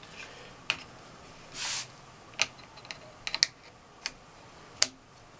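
Scattered sharp clicks and light knocks from a 1000-grit sharpening stone being fitted into the stone holder of a clamp-type knife-sharpening jig, with a short rush of noise about a second and a half in.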